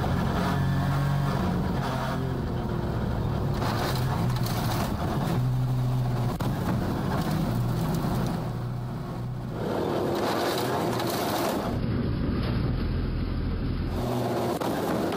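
Rally cars' turbocharged four-cylinder engines running hard on the stage, in several short clips cut together, the engine note changing abruptly at each cut.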